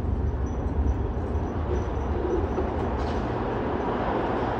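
R160 subway train approaching through the tunnel: a steady rumble that builds from about three seconds in as the train nears the platform.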